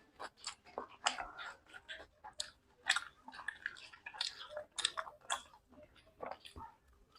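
Close-miked chewing of luchi with ghugni: wet, irregular mouth clicks and lip smacks, several a second.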